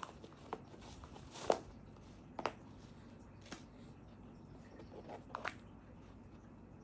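Hands handling a small cardboard jewellery box and its satin ribbon: soft rustling with a few sharp light clicks and taps, the loudest about a second and a half in, and a short cluster near the end as the box lid is lifted off.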